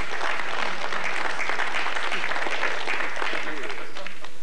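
Audience applauding and laughing at a joke, the clapping dying away near the end.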